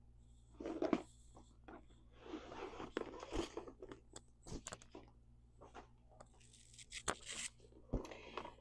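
Faint, irregular rustling and scraping of handbags being handled as a fabric bag organizer is pulled out of a coated-canvas tote and a second tote is opened, with a few soft knocks.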